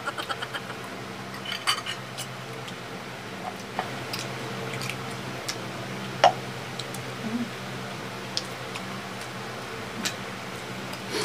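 Spoons and forks clicking and scraping on ceramic plates and bowls, with wet eating sounds, over a steady low hum. The sharpest clink comes about six seconds in.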